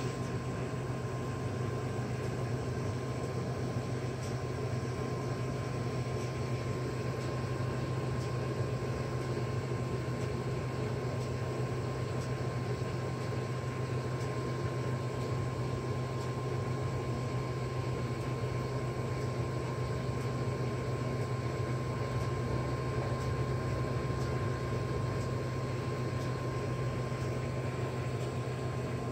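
Steady machine-like hum: a low drone with a thin constant high tone over a hiss, unchanging throughout.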